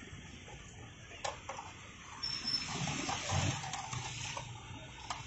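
Potato fries sizzling in hot oil in a deep fryer, a hiss that swells from about two seconds in. A few sharp metal clicks come from the wire fry basket and scoop.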